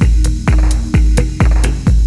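Electronic dance music with a heavy kick drum beating about twice a second over a bass line.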